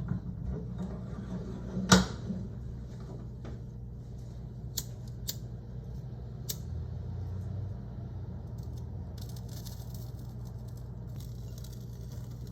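A few sharp clicks, a lighter being struck to set a WD-40-soaked rope alight, over a steady low hum. A faint hiss comes in about nine seconds in.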